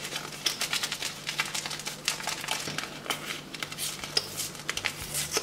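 MRE foil-lined paper drink-mix packet being crinkled and torn open by hand: a dense, uneven run of crackles and crinkles.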